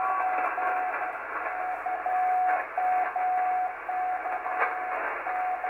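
Drake TR-4C ham radio transceiver receiving a straight-key Morse code (CW) signal: a single steady beep keyed on and off in long, slow dashes about a second each, over steady band hiss heard through the receiver's narrow crystal filters.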